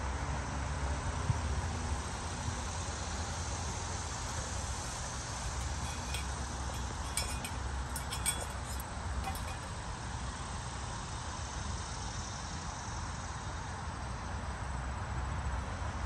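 Steady outdoor background noise: a low rumble under a hiss, with a short run of light clinks about six to nine seconds in.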